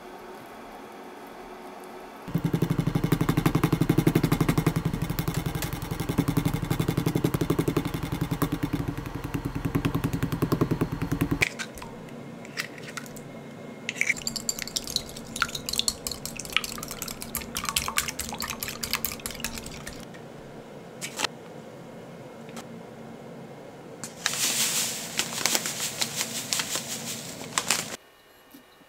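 Kitchen prep sounds: a loud stretch of rapid, even knocking as a knife works the pork cutlets on a wooden cutting board, stopping after about nine seconds. Then eggs are cracked into a glass bowl and beaten with a whisk, a run of sharp clicks, and near the end a short burst of rustling as a cutlet is pressed into flour in a metal tray.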